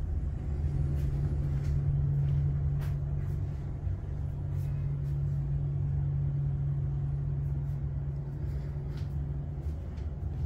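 A steady low mechanical hum with a rumble beneath it, with a few faint clicks scattered through it.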